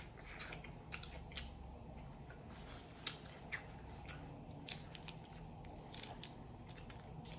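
Close-miked chewing of fried green beans, with irregular sharp, wet mouth clicks and smacks.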